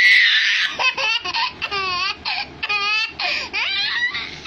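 A loud sneeze right at the start, then a one-year-old baby laughing in short, high bursts of giggles.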